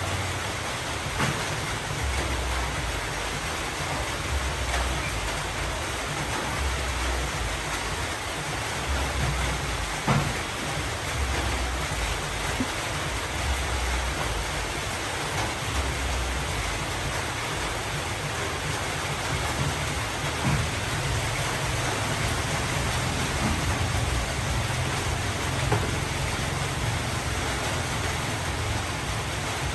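A steady hiss like rain falling, with a low rumble underneath that swells and fades and a few faint knocks.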